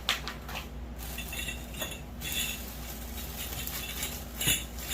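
Metal grow-tent frame poles and connectors being handled and sorted: light clinks and rattles, with a sharper knock about four and a half seconds in.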